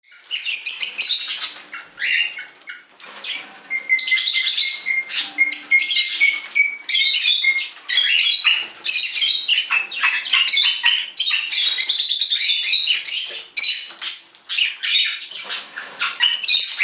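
Birds chirping in rapid, overlapping calls, with a held high note from about four to seven seconds in.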